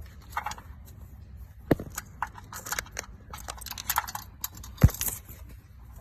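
Hands handling and fitting small scooter parts: scattered clicks, taps and rustles, with two sharper knocks, one near two seconds in and a louder one near five seconds.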